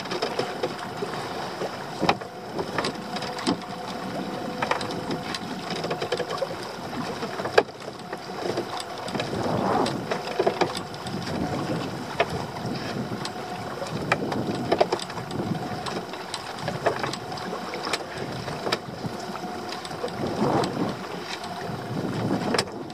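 A lobster-pot line being hauled by hand over the gunwale of a small open boat at sea: water sloshing against the hull in surges, with scattered knocks and clunks from the rope and boat, over a faint steady hum.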